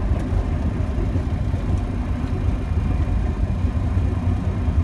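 Boeing 737-700 rolling along the runway after landing, heard inside the cockpit: a steady low rumble.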